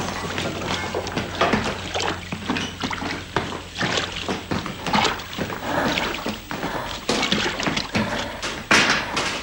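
Someone moving through tall reeds: a dense, irregular run of swishes and crackles, several a second, with a louder one near the end.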